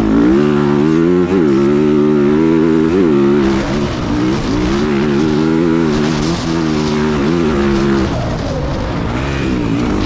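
Dirt bike engine running under throttle while riding across sand, its pitch rising and falling with the throttle, with a couple of quick revs early on. It eases off about eight seconds in.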